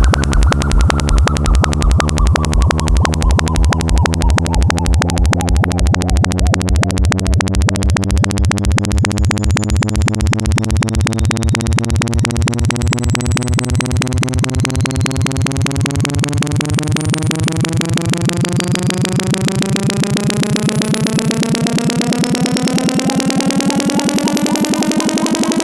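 Synthesized bass test tone for speaker sound checks, rapidly pulsing, its pitch slowly rising and the pulses speeding up.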